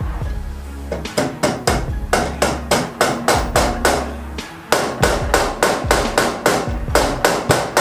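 Hammer blows on the go-kart's rear wheel and axle, about four a second, in two runs with a short pause in the middle.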